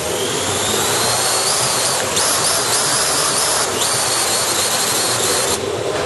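Quadcopter drone's electric motors and propellers whirring over a steady rushing noise. A high whine climbs over the first two seconds, jumps up and down in pitch several times, then cuts off shortly before the end.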